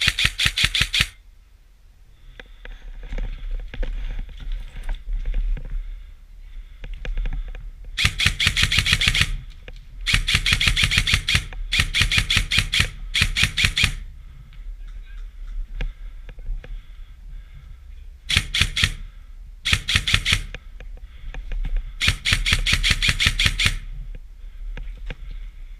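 Airsoft guns firing on full auto: about eight short bursts of rapid, evenly spaced cracks, each one to two seconds long, with a quieter rustle between bursts.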